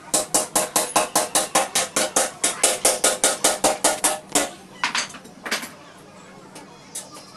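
Rapid metallic knocking, about five sharp strikes a second for some four seconds, then a few single knocks: metal being struck repeatedly with a ringing note.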